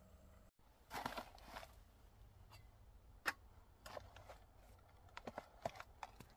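Faint rustling and a scatter of sharp crinkles and clicks as a foil-lined dehydrated meal pouch is handled and held open. A short rustle comes about a second in, and one click a little past the middle is louder than the rest.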